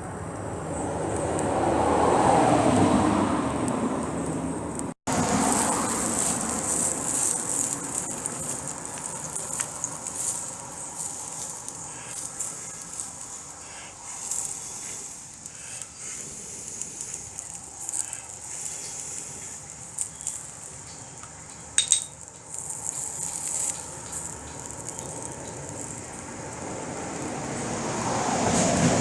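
A motor vehicle passes, swelling and fading about two seconds in, and another approaches near the end, over a steady high hiss with scattered light crackles.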